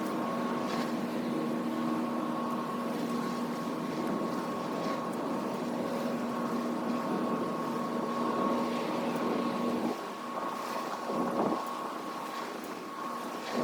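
A steady engine drone with a few held tones over a rushing wind-like noise; the lower tones stop about ten seconds in.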